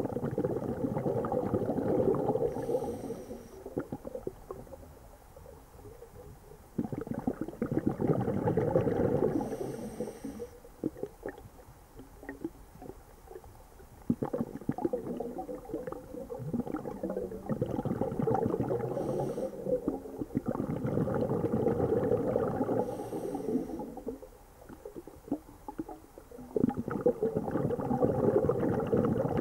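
A scuba diver breathing underwater: bursts of exhaled bubbles gurgling from the regulator every few seconds, each lasting two to three seconds, with quieter gaps between them.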